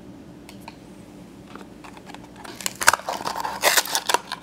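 Cardboard blind box being torn open, with crinkling and tearing of the packaging starting about two and a half seconds in, after a quiet stretch with a few faint clicks of small plastic figures being set down.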